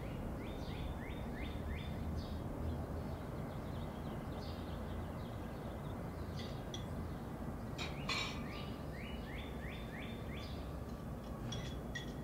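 Small birds chirping and calling over a steady low background rumble. A run of four or five quick notes comes twice, once near the start and once about nine seconds in, with a louder call just before the second run.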